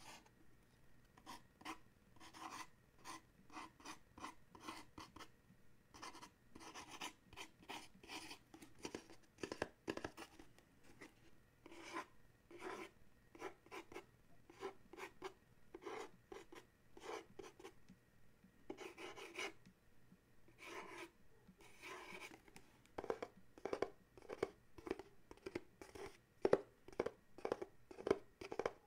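Fingernails scratching and tapping on a small cardboard gift box in quick, short strokes, louder near the end.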